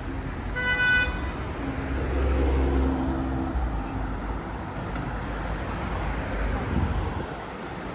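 Road traffic, with a short high-pitched car horn toot about half a second in, followed by a lower pitched vehicle engine note for about two seconds.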